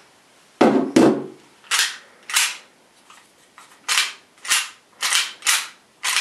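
WE G26C gas blowback airsoft pistol's slide being worked by hand: about four pairs of sharp clacks, each pull back followed about half a second later by the snap forward, the loudest pair about a second in. The slide won't stay back as it should and just falls back.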